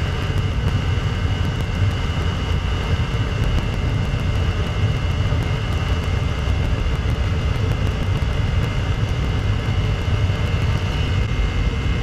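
Chinese diesel parking heater running on waste oil fed through a heated fuel line. It makes a steady low rumble with a steady high whine over it. It is surging as vapor in the heated line pushes extra fuel in.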